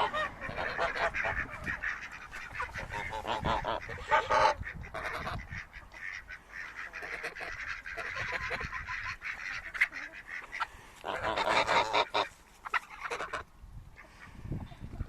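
Domestic geese honking, several at once, in repeated loud stretches with short lulls between.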